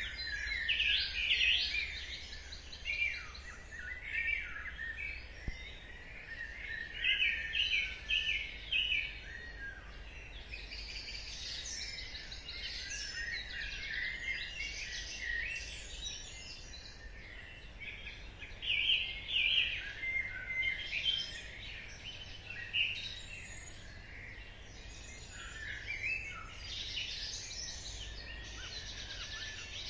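Dawn chorus: several birds singing at once, their overlapping trills, chirps and whistled phrases coming in louder clusters, over a steady low rumble.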